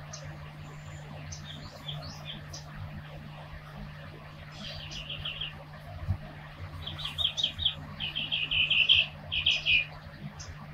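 Small bird chirping in quick runs of short, high notes, loudest in the second half, over a steady low hum.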